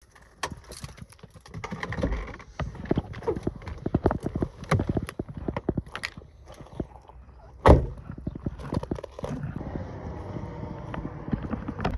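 Footsteps crunching on gravel, with one loud thump a little over halfway through as the Volkswagen New Beetle's door is shut.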